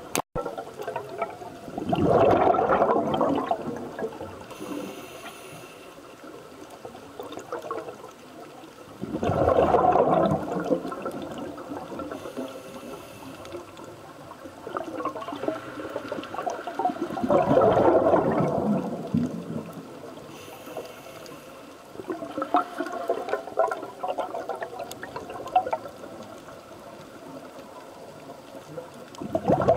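Scuba diver breathing through a regulator underwater: a gush of exhaled bubbles roughly every seven to eight seconds, with a faint hiss of inhalation between.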